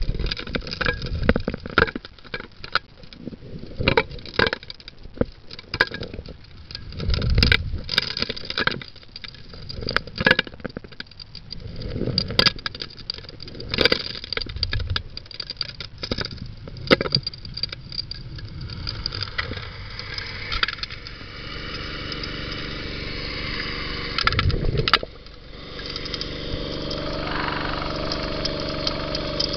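Gravel and stones knocking and clattering as they are sucked into a 4-inch gold dredge's suction nozzle, heard through the water, over the dredge's 9 hp Honda single-cylinder four-stroke engine and pump running steadily. In the last few seconds the clattering stops and the engine's steady drone is plain.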